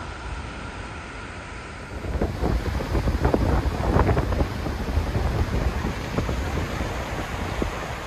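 Steady rush of falling water. About two seconds in it cuts to a louder rush of Skógafoss waterfall heard from its brink, with gusts of wind buffeting the microphone.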